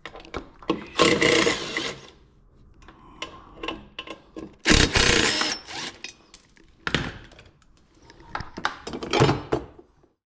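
DeWalt cordless drill-driver running in short bursts of about a second, backing out the Torx bolts that hold a snowmobile's stock bumper, with knocks and clunks of metal and plastic between the bursts.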